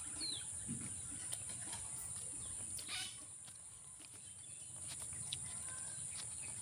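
Rural outdoor ambience: a steady high-pitched insect drone with a few short bird chirps, and a brief rustle about three seconds in.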